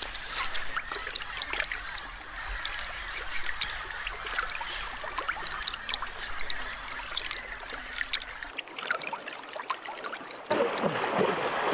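Shallow river water trickling and lapping, with many small splashes, around an anaconda moving through it. About ten seconds in, the water noise steps up into louder splashing.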